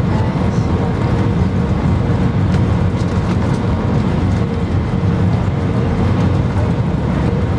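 Cabin noise inside an Airbus A319 on final approach: steady engine and airflow noise with a strong low rumble and a faint tone that comes and goes.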